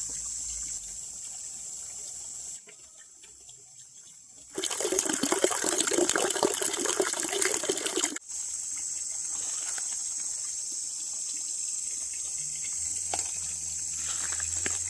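Water splashing for about three and a half seconds in the middle, starting and stopping abruptly, between stretches of a steady high insect drone.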